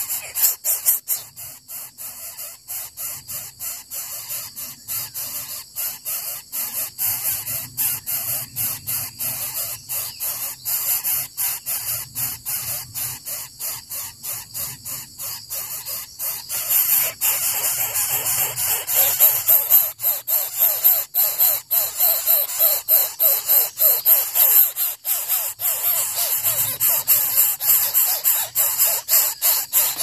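Greater coucal nestlings begging at the nest while being fed, a harsh rasping call repeated several times a second over a steady high hiss. About 16 seconds in, the calls and hiss grow louder and denser.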